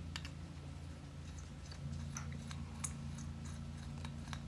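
Faint, scattered clicks and ticks of small screws and a washer being handled as the joystick housing is taken apart, over a steady low hum.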